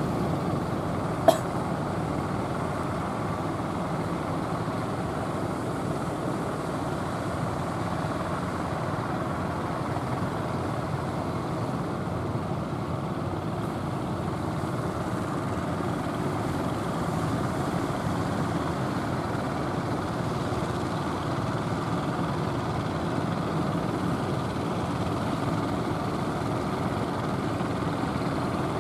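Engines of several outrigger fishing boats running steadily over the wash of the waves, with one sharp click about a second in.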